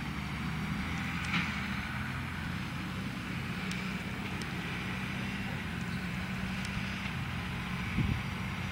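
Case IH tractor's diesel engine running steadily as it drives past hauling a digestate tanker, with a few light clicks and one thump about eight seconds in.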